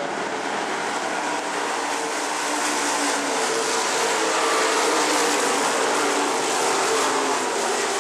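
A pack of pure stock dirt-track race cars running around the oval, several engines droning at once at different pitches. The sound swells a little about halfway through as the cars come past.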